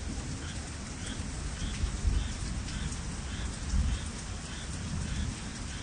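Steady rain falling, with a faint high chirp repeating about every half second and heavier low rumbles about two and four seconds in.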